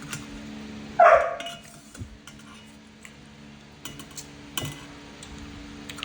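A dog barks once, about a second in, over a steady low hum. A few light clinks of dishes or cutlery follow later.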